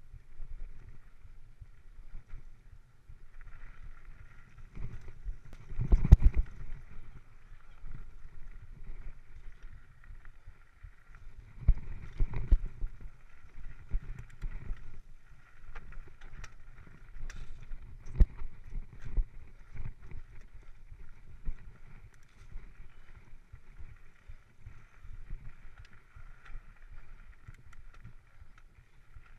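Mountain bike ridden along a dirt singletrack, heard from a chest-mounted camera: a rough rumble of tyres and air on the microphone, with many small knocks and rattles from the bike over bumps. It grows loudest about six seconds in and again around twelve seconds.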